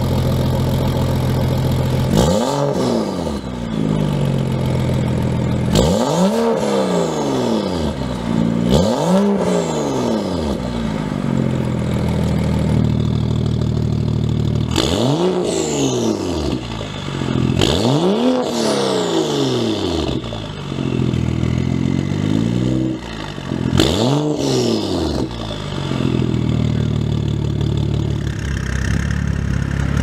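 BMW 640i's turbocharged straight-six idling through an Fi aftermarket valved exhaust with catless downpipe, then blipped in sharp free-revs that rise and fall quickly, about seven in all. The first few revs come with the exhaust valves closed, and the later ones with the valves open.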